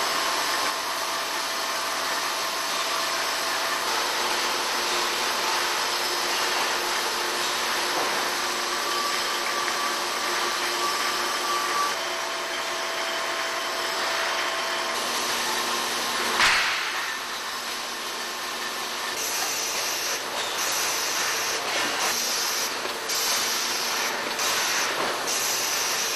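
Automated beer bottling and capping line running: a steady mechanical hiss and whir with a few faint steady tones, and one short, loud burst about sixteen seconds in.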